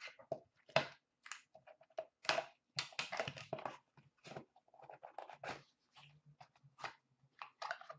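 Hands opening a small white cardboard box and taking out trading cards: irregular rustling, scraping and light clicks of cardboard and cards.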